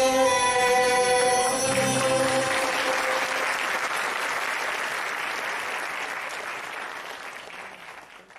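A violin-led ensemble holds its final notes, which die away about two seconds in. Audience applause takes over and fades steadily away.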